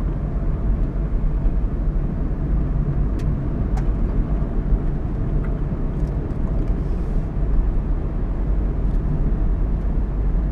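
Steady road and engine noise of a car driving at speed, heard from inside the cabin, with a few faint ticks.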